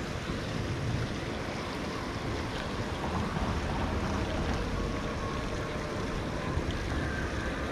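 Steady rush of water pouring through a canal spillway, with wind buffeting the microphone.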